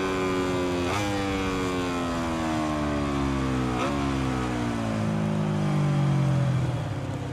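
Aprilia RS-GP MotoGP bike's V4 engine slowing through the gears: the revs fall steadily and jump up sharply at each of two downshifts. Near the end the engine note drops away.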